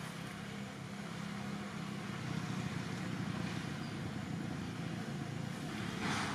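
Steady low hum of a running engine, with a brief hiss near the end.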